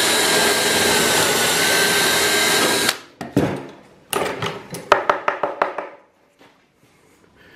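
Power drill running at a steady speed, driving a Kreg stepped pocket-hole bit through the R3 jig into the wood, then stopping about three seconds in. A quick run of sharp knocks and taps follows.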